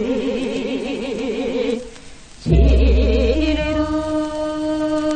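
A woman singing jireum sijo, Korean classical sung poetry, on an old gramophone disc recording. She holds long notes with a wide wavering vibrato, breaks off briefly about two seconds in, then comes back in and settles on a long steady note.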